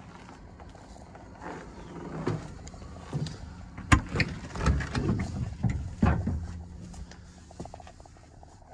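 Footsteps and clatter on the steel ladder and platform of a Claas Lexion 740 combine. A sharp click about four seconds in as the cab door opens, then a run of low thumps and knocks as someone climbs into the cab.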